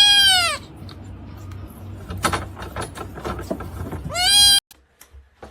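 An animal gives two short, high calls, each rising then falling in pitch, about four seconds apart, with light knocks and rustling between them. The sound cuts off abruptly near the end.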